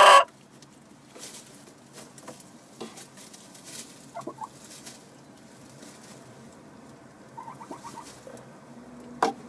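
Chickens shuffling and scratching in straw bedding in a henhouse: faint rustling with scattered light taps, and a few soft, quick clucks around four seconds in and again near eight seconds. A sharp tap comes just before the end.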